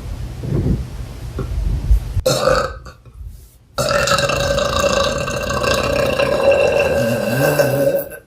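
A woman burping. A low rumbling noise comes first, then a short burp just after two seconds in. From nearly four seconds in comes one long, drawn-out belch of about four seconds, held on a steady pitch, which stops just before the end.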